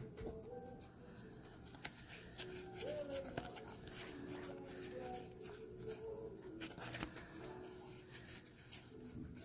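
Pokémon trading cards being slid and flicked one by one through the hands, a run of light card clicks and rustles. A faint wavering tone sounds in the background.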